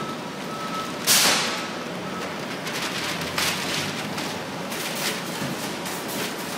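Large sheets of kraft packing paper being flapped, crumpled and smoothed by hand. A loud rushing swish comes about a second in and dies away fast, and shorter crackling rustles follow.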